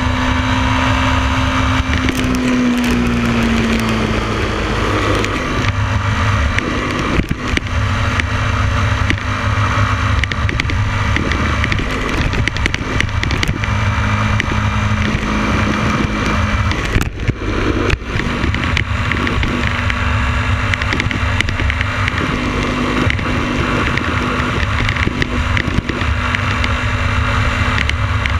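Motorcycle riding at road speed: wind buffeting the microphone over steady engine and tyre noise. The engine note dips slightly about three seconds in, then holds steady.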